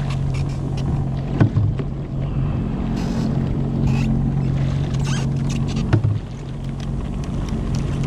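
Sea-Doo Fish Pro personal watercraft's Rotax engine running with a steady low hum, water churning and rushing around the hull. A couple of short knocks, about a second and a half in and again near six seconds.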